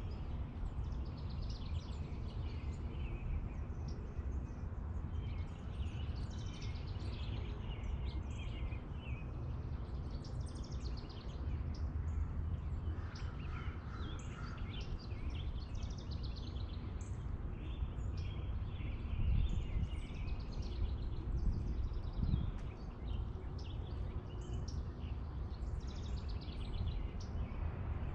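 Small songbirds chirping over and over over a steady low rumble of outdoor background noise.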